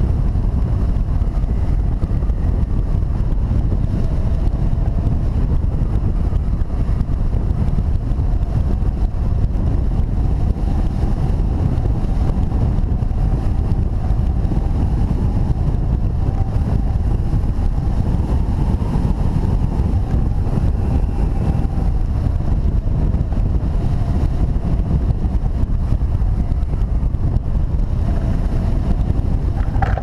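Airflow rushing over the microphone of a hang glider's camera in flight: a loud, steady rumbling buffet, with a faint wavering whistle in it.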